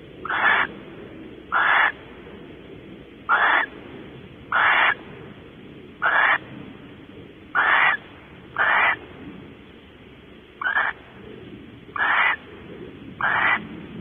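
Barn owl giving a series of short, harsh, hissy calls, about ten in all, each under half a second and repeated roughly every second and a half.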